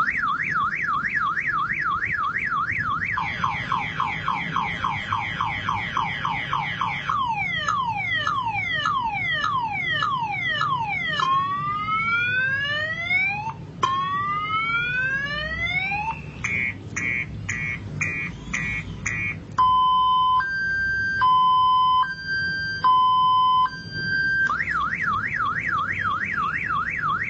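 Car alarm siren running through its cycle of tones. It starts with a quick up-and-down warble, then gives repeated falling sweeps and rising sweeps, then rapid pulsed chirps, then a two-tone high-low beep about one step a second. Near the end it returns to the warble.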